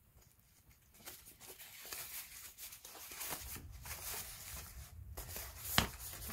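Rustling and crinkling of a thin foam packing sheet as it is unwrapped from a carbon-fibre chassis frame plate, with one sharp click near the end.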